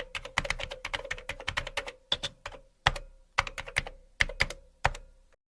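A rapid, irregular run of sharp clicks like keystrokes on a keyboard, in short clusters with brief gaps, over a faint steady hum. It stops suddenly about five seconds in.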